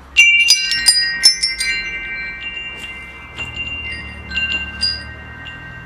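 Metal wind chimes: a quick flurry of strikes at the start, then scattered single strikes, with several high, clear tones ringing on long after each hit.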